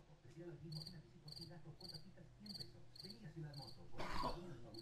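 A recording of crickets chirping, played back on a computer: short high chirps repeating roughly twice a second.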